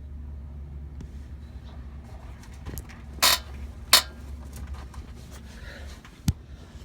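Bad bushing on a 1995 Ford Explorer knocking: two sharp knocks a little over half a second apart, then a single low thump near the end, over a steady low hum.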